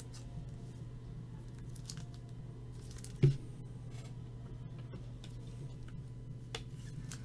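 Trading cards being handled and shuffled at a table: faint rustles and small clicks, with one soft thump about three seconds in, over a steady low hum.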